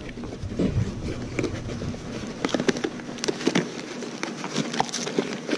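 Small cardboard box being opened and handled by hand: irregular scraping, rustling and small clicks as the flaps are pulled open.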